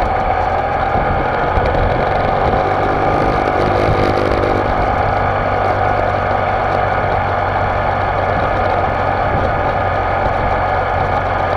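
BMW motorcycle engine running steadily at cruising speed, mixed with wind and road noise.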